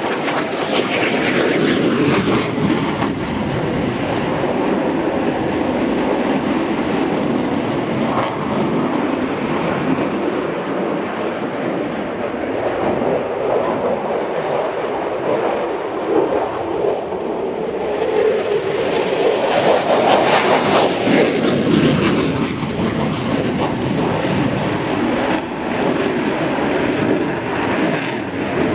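Aircraft engine noise: a continuous rushing that swells loudest shortly after the start and again about twenty seconds in.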